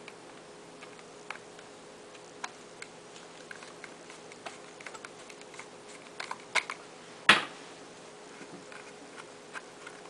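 A screwdriver turning a screw out of a wooden rifle stock: scattered light clicks and ticks of the blade and screw, with one much louder knock about seven seconds in.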